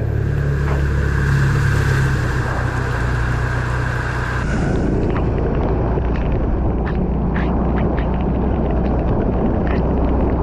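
A motor vehicle's engine running, a loud steady low rumble with a held higher tone that drops away about four and a half seconds in, followed by scattered short ticks.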